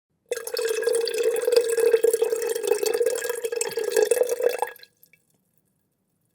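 Water poured in a steady stream into a glass for about four and a half seconds, splashing with a steady pitch from the filling vessel, then stopping fairly abruptly, followed by a single last drip.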